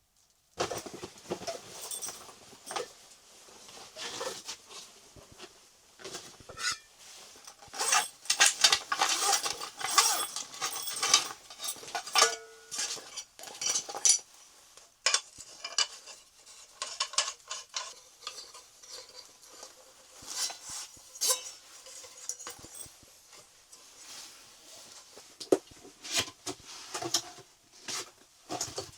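Cookware and utensils being handled, clinking and clattering in irregular bursts, busiest in the first half.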